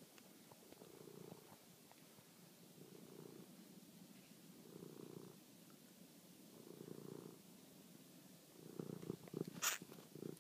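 Domestic cat purring faintly in slow surges about every two seconds while it crouches over a mouse. Near the end come a few louder scuffing knocks as it paws at the mouse.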